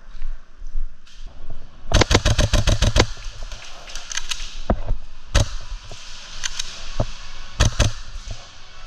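Airsoft guns firing: a rapid burst of about a dozen shots in roughly a second, about two seconds in, then scattered single shots and short bursts.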